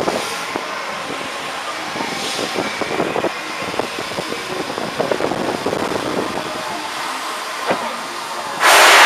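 Riding noise aboard a circling Astro Orbiter rocket: a steady rush of air with many light rattling clicks. Near the end it turns abruptly much louder.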